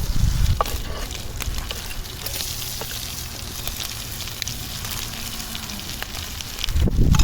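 Food sizzling in a pan over a wood fire, a steady hiss with scattered crackles. A low wind rumble rises near the end.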